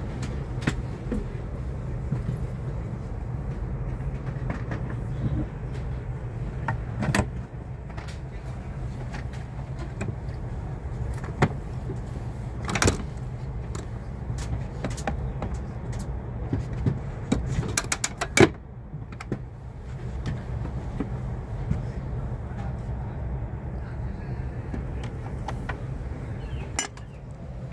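Steady low hum of a Renfe Alvia train carriage, with plastic clicks and clacks as the seat-back tray table, footrest and bin lid are handled. The clacks come singly about 7 and 13 seconds in, then a quick run of them just after the middle, where the loudest one falls.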